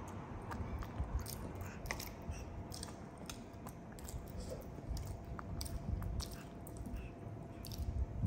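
Baby monkey eating soft steamed pumpkin off a fork. There is faint chewing, with scattered light clicks of the metal fork against the ceramic bowl.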